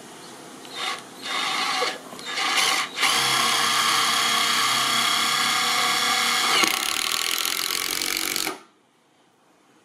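Ozito 18V cordless driver sinking a self-drilling deck screw into timber decking. It starts with three short trigger bursts, then runs steadily with a motor whine for a few seconds. About six and a half seconds in it drops to a lower, rougher sound as the screw drives home, then cuts off suddenly.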